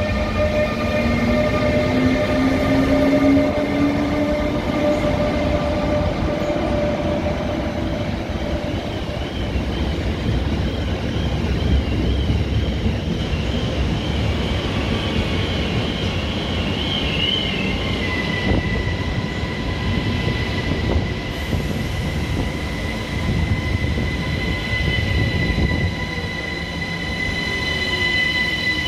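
ÖBB class 1116 Taurus electric locomotive pulling away with a train of sleeper coaches. Its GTO traction converter whine rises steadily in pitch over the first several seconds, over the rumble of the wheels on the rails. A wavering high squeal follows for about ten seconds. From around two-thirds of the way in, steady high whines come from an electric multiple-unit train moving on the near track.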